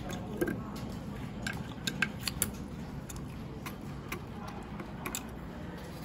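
Light, irregular metal clicks and taps as a screwdriver works at a smart lock's brass cylinder and metal back plate, over a steady low hum.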